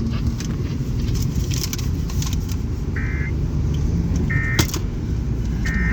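Steady low rumble of car road and cabin noise, with three short electronic beeps about a second and a half apart in the second half and a single sharp click between the last two.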